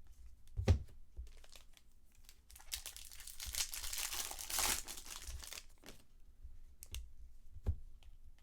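Foil wrapper of a trading card pack being torn open and crinkled for a few seconds, with a knock on the table just before and a couple of light clicks after.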